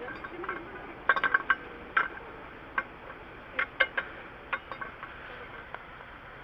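Irregular sharp metallic clicks and clinks, about a dozen in uneven clusters, over a steady background hiss: hand tools and lug-nut hardware being handled during a roadside tire change.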